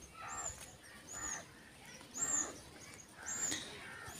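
A bird calling over and over: short, high notes repeated about once or twice a second, with fainter lower chirps between them.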